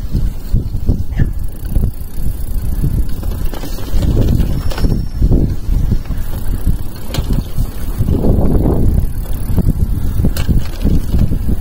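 Mountain bike (GT Verb Sport) riding over a dirt singletrack, heard from on the bike: an uneven low rumble of tyres and air on the microphone, swelling twice, with a few sharp rattling clicks from the bike.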